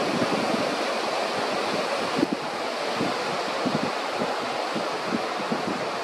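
Sea surf washing steadily, with wind buffeting the microphone in irregular low gusts.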